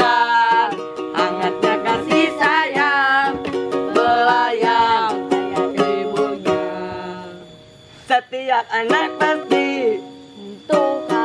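A voice singing to a strummed plucked string instrument. The singing fades away past the middle, and the strumming picks up again about eight seconds in.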